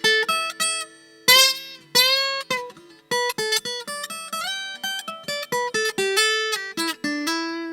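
Washburn WA45CE electro-acoustic steel-string guitar being played: a quick melody of single picked notes, with two strummed chords between about one and two seconds in.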